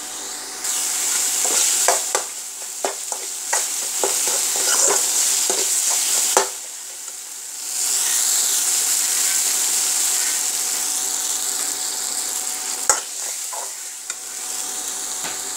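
Chopped tomatoes frying and sizzling in spiced oil in a steel kadai, with a steel spoon scraping and clinking against the pan as it stirs and mashes them. The sizzle drops away briefly about six seconds in, then comes back.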